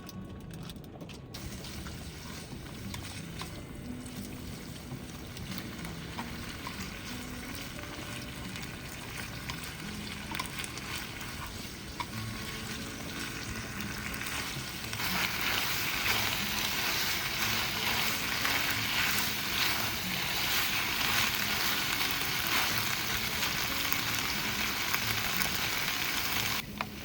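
Yaki udon and cabbage frying in a pan on a gas cassette stove, a steady sizzle that turns louder and brighter about halfway through.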